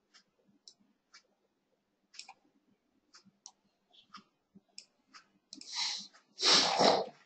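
Scattered soft clicks of a computer mouse and keyboard, with two short rushes of noise near the end, the second louder.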